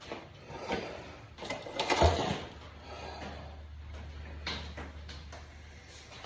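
Chainsaw starter rope pulled several times, each pull a short rasp, the loudest about two seconds in; the worn-out saw does not catch.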